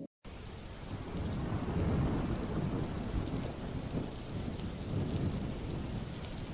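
Rain falling steadily, with low rolling rumbles of thunder that swell about two seconds in and again near the end. It cuts in abruptly after a moment of silence.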